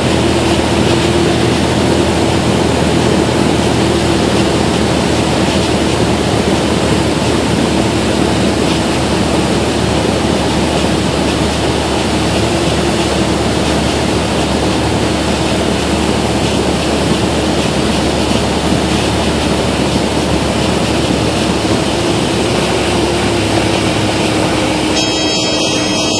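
Engine and propeller of a small single-engine propeller plane, heard from inside the cockpit as a loud, steady drone with a faint steady hum. Music comes in about a second before the end.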